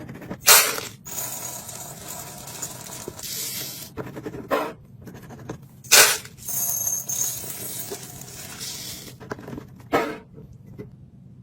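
Kitchen items and containers being handled and set down while restocking a fridge and pantry. Four sharp knocks come over a light scraping and rustling, the loudest about half a second in and about six seconds in.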